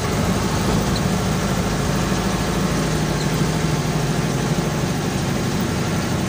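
A vehicle's engine running with a steady low hum and road noise, heard from inside the cabin while driving.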